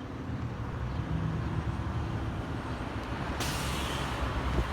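Truck driving by, its engine rumbling low and steady, then a sudden hiss of air starting about three and a half seconds in.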